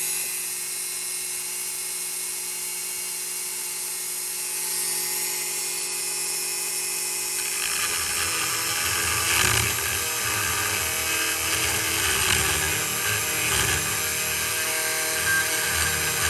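High-speed rotary tool running with a steady whine, then grinding against the steel of a Spyderco Shaman's blade from about seven and a half seconds in, cutting a sharpening choil at the base of the blade.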